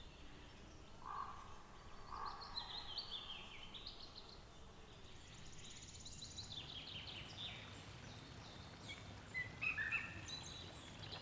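Faint wild birdsong: scattered high chirps and short trills from small birds, with two lower calls about one and two seconds in, over a quiet outdoor background.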